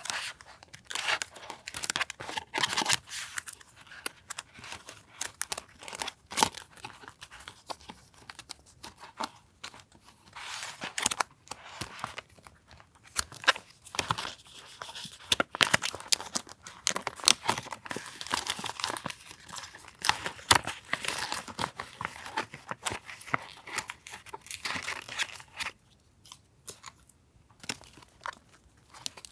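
Paper being torn and crinkled by hand: irregular rustling and tearing with small sharp clicks and taps, pausing briefly near the end.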